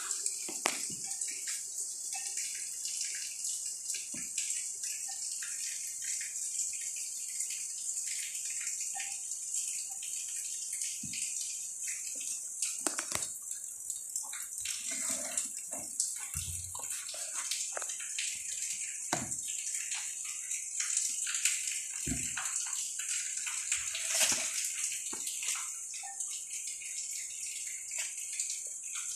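A steady high hiss, with scattered light taps, scratches and a few soft thumps of kittens pawing and clambering on a cardboard box.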